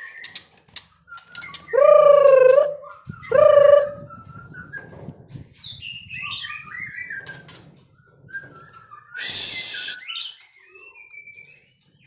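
White-rumped shama (murai batu) singing: a run of short, varied whistled phrases that glide up and down, broken by two loud, harsh calls about two and three and a half seconds in and a short rasping burst near ten seconds.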